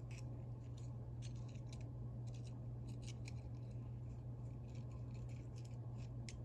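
Steel pick tool scraping and clicking against the coil spring and pawl inside the head of a Proto 5449-14BL spud ratchet, a scatter of small, sharp metallic clicks. A steady low hum lies under it.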